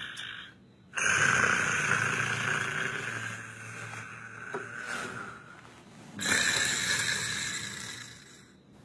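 Snoring: two long snores, one starting about a second in and another about six seconds in, each starting abruptly and fading out.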